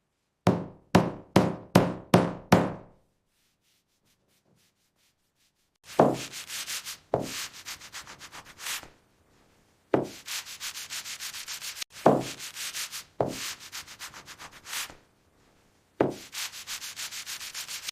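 Wooden knocking and clattering: six quick knocks in a row, a pause, then several runs of rapid, even clicking, each starting with a thump, as a handmade wooden toy car is handled and rolled.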